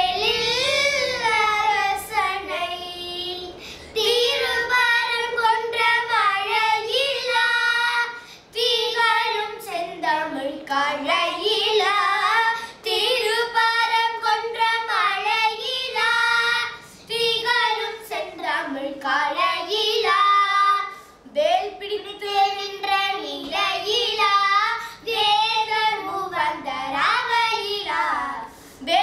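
Two young girls singing a Tamil devotional song to Murugan together, unaccompanied, in long phrases whose pitch bends and wavers in ornaments, with short breaks between phrases.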